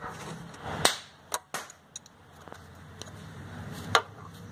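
About four sharp metallic clicks and knocks from parts being handled at a car engine's timing belt, the loudest about a second in and near the end.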